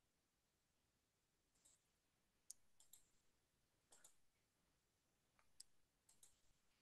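Near silence with a few faint clicks scattered through it.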